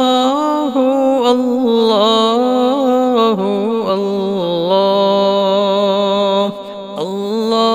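Vocals-only nasheed-style chanting with no instruments: a slow, drawn-out melody of long held notes that glide in pitch, with a short break about six and a half seconds in.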